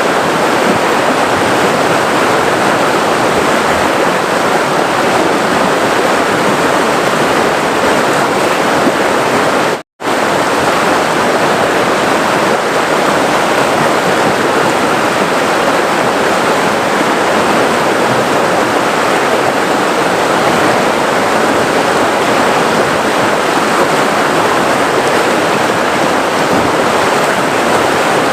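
River water flowing and rushing steadily. About ten seconds in it cuts out to silence for a split second, then resumes unchanged.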